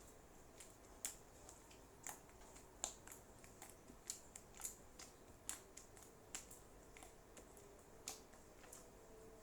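Homemade clay slime being squeezed and stretched by hand, giving irregular small sharp clicks and pops about once a second. The slime is still slightly sticky.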